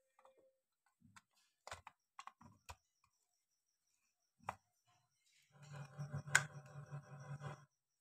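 Sharp plastic clicks and taps as the two halves of a hair dryer's plastic housing are pressed and snapped together by hand. Near the end comes a rough rasping sound of about two seconds, plastic parts grinding as they are squeezed into place.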